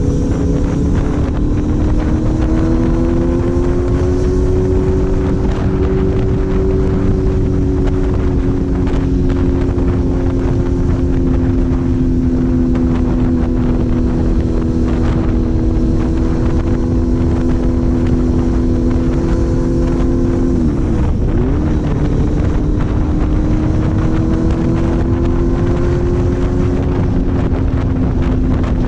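Four-cylinder engine running under way at steady high revs, its note climbing over the first few seconds and then holding. About three quarters of the way through, the pitch drops sharply and comes back up, as at a gear change or a brief lift off the throttle. Wind rumbles on the microphone throughout.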